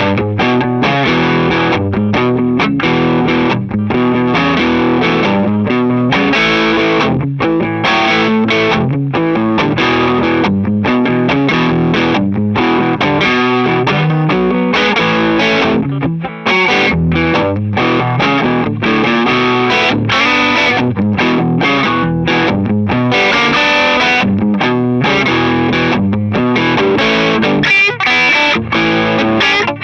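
Gibson ES-335 semi-hollow electric guitar with Burstbucker pickups, played through an amplifier in a blues style: short rhythmic chord and note phrases with brief breaks between them.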